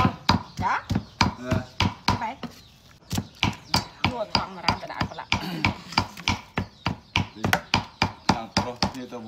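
Steady, rhythmic knife chopping on a board, about three knocks a second, with voices talking over it in the first couple of seconds.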